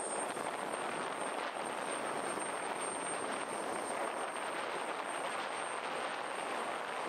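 Airbus A320-family jet airliner's engines at takeoff power through the takeoff roll and lift-off: a steady, even jet noise that holds at one level throughout.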